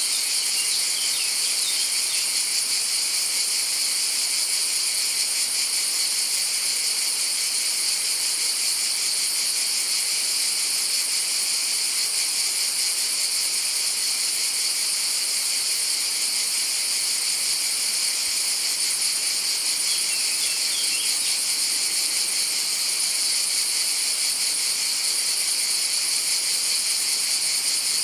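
A chorus of cicadas singing: a dense, unbroken high-pitched buzz that holds steady throughout.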